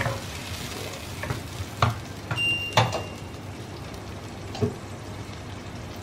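Ground onion, tomato and curd paste sizzling in hot oil in a pan while a wooden spatula stirs it, knocking against the pan four times in the first three seconds and once more near the end.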